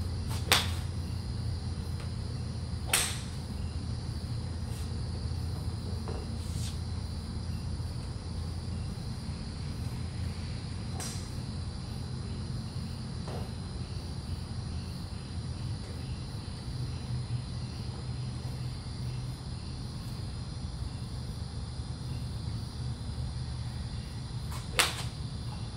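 Golf iron striking balls off a driving-range mat, heard as sharp single clicks: the loudest about half a second in, another about three seconds in, and one near the end, with fainter strikes from other bays between. A steady low hum runs underneath.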